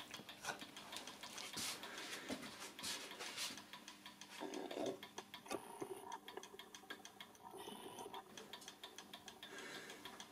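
German-made mechanical clock ticking steadily and faintly, with a few brief rustles in between.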